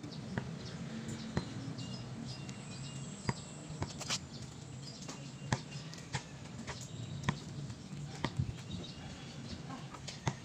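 Outdoor ambience with a low steady hum, scattered sharp taps and knocks at irregular intervals, and faint bird chirps.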